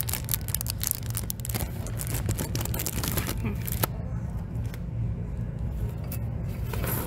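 Close rustling and scraping as paper and cardboard sheets are handled near the phone microphone, busiest in the first few seconds, over a steady low hum of the shop's background.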